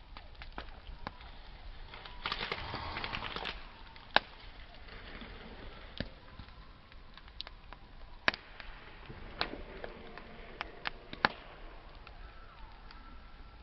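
Campfire wood burning, crackling with scattered sharp pops. A denser rush of crackling comes about two seconds in and lasts over a second, and a few single pops stand out loudest later on.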